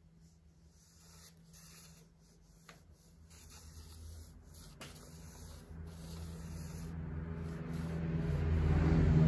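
Faint scratching of crayon on paper, then background music with a low steady drone fading in and growing loud near the end.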